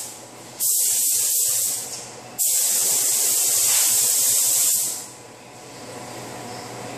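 SATA air-fed paint spray gun spraying base coat onto the underside of a car hood: two hissing bursts, a short one just after half a second in and a longer one of about two and a half seconds, each starting and stopping abruptly with the trigger. After the second burst only a quieter steady background noise remains.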